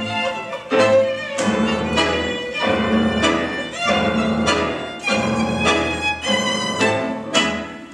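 Live tango quartet of piano, double bass, bandoneón and violin playing, the violin prominent, with strong accented chords on a steady beat.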